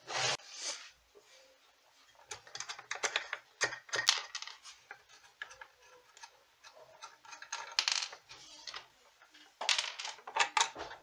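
Handling noise from a Meteoro Atomic Drive guitar amplifier's metal chassis and cabinet as it is worked on: a knock at the start, then irregular clusters of metallic clicks, clinks and rattles.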